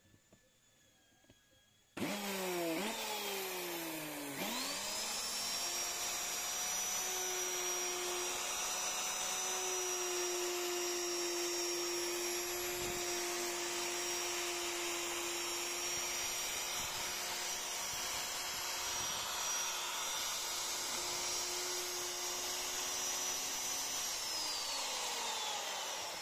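Electric plunge router switched on about two seconds in, spinning up with a rising whine, then running at a steady high whine while its bit cuts into a hardwood board. Near the end it is switched off and winds down with a falling whine.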